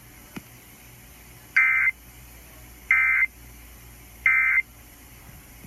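Three short, identical digital warble bursts, about a second apart: the Emergency Alert System end-of-message data tones that close a weather radio warning broadcast. A faint click comes just before them.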